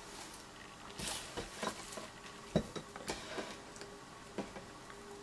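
Shredded plastic Easter grass being handled and dropped into a glass jar: light crinkles and rustles with a scattering of small ticks at irregular moments.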